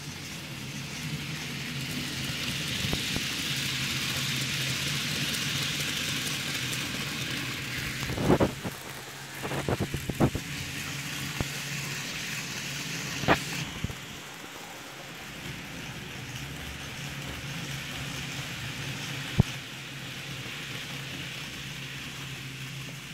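Electric model train running past on its track: a steady motor hum with the rushing whirr of wheels on rail, swelling as it comes near and easing off after it passes. Several sharp clicks from the running gear partway through.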